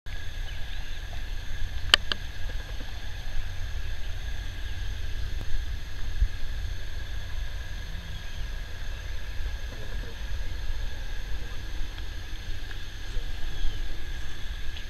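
Low rumble of wind buffeting the microphone, with faint steady high-pitched tones above it and a sharp click about two seconds in.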